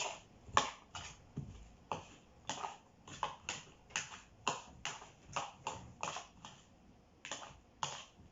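Small spoon stirring a cucumber salad dressed with mayonnaise in a bowl. The spoon knocks and scrapes against the bowl in short clicks, about two or three a second, with a brief pause near the end.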